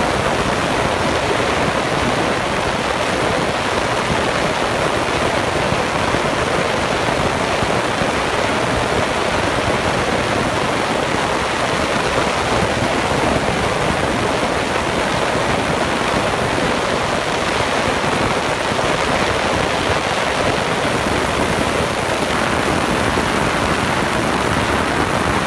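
Ultrasonic cleaner tank running with a French horn in the bath: a loud, steady hiss from the cleaning solution that never breaks.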